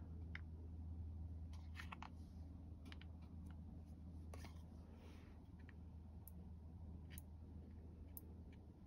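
Faint, scattered clicks of large metal tweezers picking lily stamens out of a plastic tub and setting them down on wet watercolour paper, over a low steady hum.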